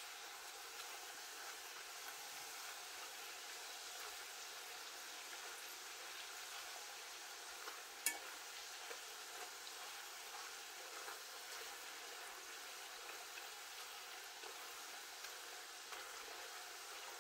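Plantain strips deep-frying in hot oil: a steady sizzle with small crackles as a metal fork stirs them. One sharp click about eight seconds in.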